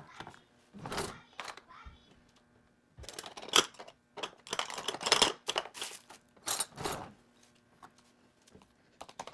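Red plastic tub of gochujang (Korean hot pepper paste) being handled and opened: several short clusters of plastic crinkling, rustling and clicking, quiet near the end.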